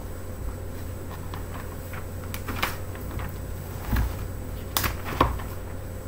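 Paper and cardboard being handled: a few light rustles and sharp taps, the sharpest two near the end, over a steady low hum.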